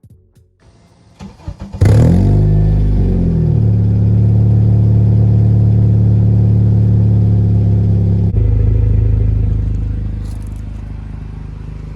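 Acura RSX four-cylinder engine sounding through an HKS Hi-Power cat-back exhaust with an aftermarket header and test pipe: it comes in loudly about two seconds in, revs up and back down, then holds a steady rev before easing off somewhat near the end.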